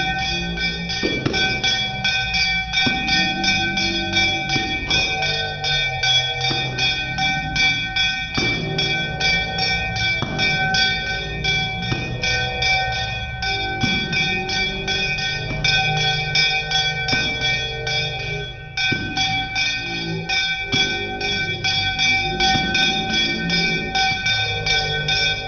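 Puja hand bell rung rapidly and continuously for aarti, each strike ringing on. There is a brief break about two-thirds of the way through, and voices are singing under the ringing.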